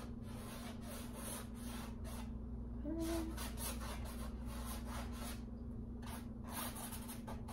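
Paintbrush scrubbing and sweeping over canvas in quick, irregular strokes, pausing briefly twice.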